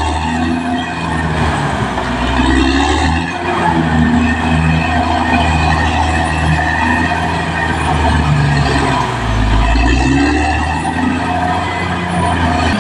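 Heavy diesel engine of a Caterpillar D6R XL crawler bulldozer running steadily, with a strong low hum whose pitch shifts a little as it works.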